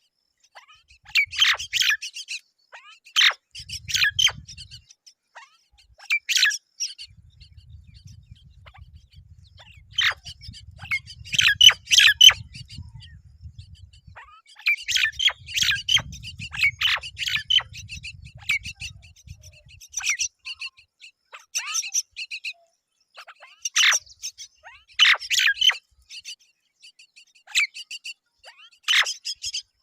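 Myna birds chirping in repeated bursts of short, harsh calls at the nest while the parents feed their chicks. A low rumble comes and goes underneath.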